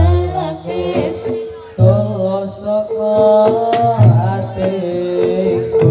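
Live Javanese jathilan music played through loudspeakers: a wavering singing voice over held pitched instruments, with a deep low stroke falling about every two seconds.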